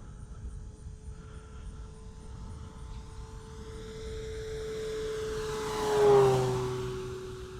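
Electric RC scale Cessna 152, driven by an E-flite Power 60 brushless motor, making a low flyby: the propeller and motor whine grows louder, peaks about six seconds in with its pitch falling as the plane passes, then fades away.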